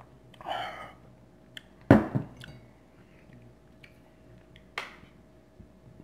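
Handling noises on a table: a brief rustle, then a loud thump about two seconds in with a smaller knock just after, and a few light clicks and taps.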